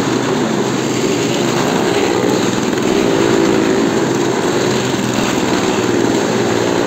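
Stunt motorcycle engine running steadily as it circles the wooden wall of death.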